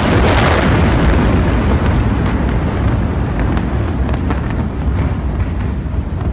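A huge explosion: loud, continuous rumble just after the blast, with scattered sharp cracks from smaller secondary blasts in the fireball near the middle.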